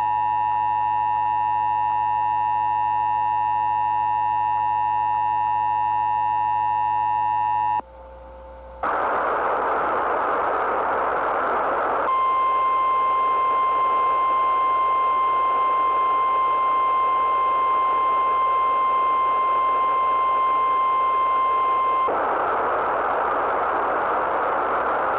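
Emergency Alert System two-tone attention signal, a steady dual tone held for about eight seconds, then a hiss of static. About twelve seconds in, a single steady NOAA Weather Radio warning tone sounds over the static for about ten seconds, then static alone again.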